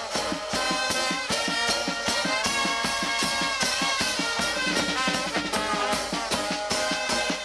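Street brass band playing an upbeat tune on trombones, trumpets and sousaphone over a bass drum and cymbals keeping a steady, quick beat.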